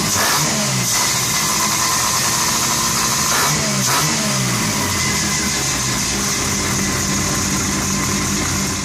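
Fuel-injected bridgeported 13B rotary engine in a Mazda RX3 running loud, blipped so its pitch climbs and drops back, once around the start and again about four seconds in.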